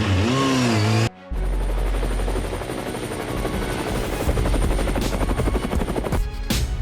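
Helicopter sound effect: a short swooping glide, then a steady, fast rotor chop over a low rumble lasting about five seconds.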